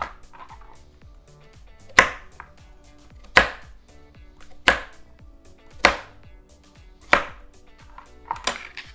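A kitchen knife chopping carrots on a plastic cutting board: five sharp chops about a second and a quarter apart, then a few lighter quick taps near the end.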